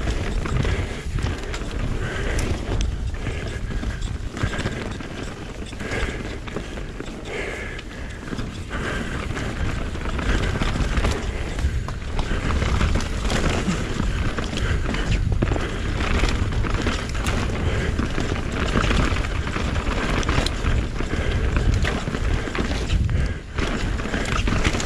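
Mountain bike descending a rough trail at race pace: a steady rumble of wind and tyres on dirt, with irregular knocks and rattles from the bike over bumps.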